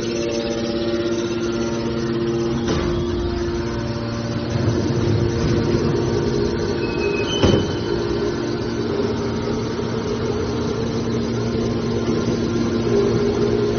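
Hydraulic scrap metal baler's electric motor and pump running with a steady hum. Two knocks cut through it, about three seconds in and near the middle, with a short high tone just before the second.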